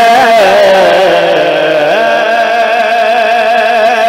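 A man singing a naat (Urdu devotional poem) solo, drawing out one long wavering note of the refrain. The note dips lower about a second in and climbs back up at about two seconds.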